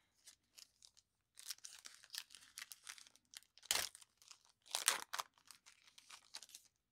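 A foil wrapper of a 2020 Panini Prizm football card pack being torn open and crinkled by hand. Dense crinkling starts about a second and a half in, with two louder sharp rips in the middle.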